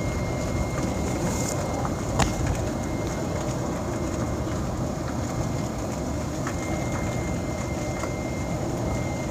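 Golf cart in motion: a steady low rumble of the ride with wind buffeting the phone's microphone, and a single sharp click about two seconds in.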